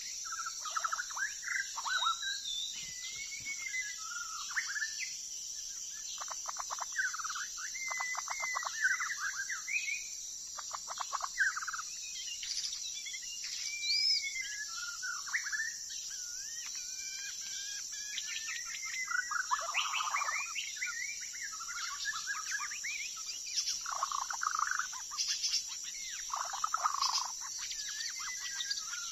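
White-rumped shama singing a long, varied song of whistled slurs and fast trilled phrases, with short pauses between phrases, over a steady high insect drone.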